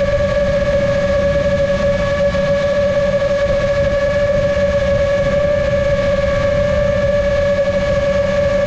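Motors and propellers of a GepRC MOZ7 seven-inch long-range FPV quadcopter whining at a steady, unchanging pitch while cruising at constant speed, with wind buffeting the onboard GoPro's microphone as a low rumble.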